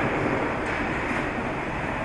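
Steady rumble and hiss of machinery running on a car-body factory floor, with a couple of faint ticks.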